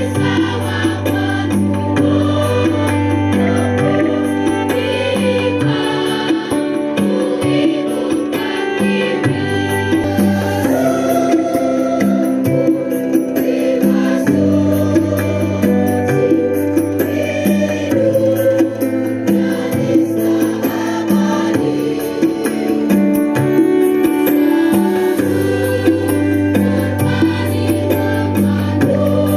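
A large school choir singing an Indonesian patriotic song in sustained, held notes over electronic keyboard accompaniment with a steady bass line.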